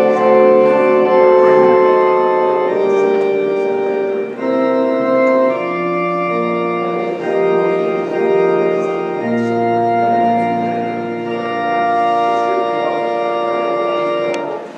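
Organ playing slow, sustained chords, the notes held and changing every second or so. A low bass note comes in about nine seconds in, and the music stops just before the end.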